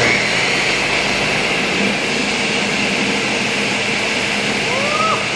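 Countertop blender switched on at its lowest speed, running steadily as it purees hot butternut squash soup.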